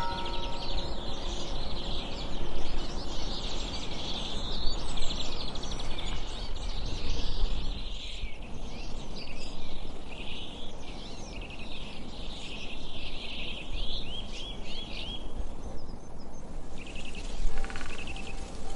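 Small songbirds chirping and trilling busily, with quick repeated rising notes now and then, over a steady background hiss. Faint music is heard at the start and returns near the end.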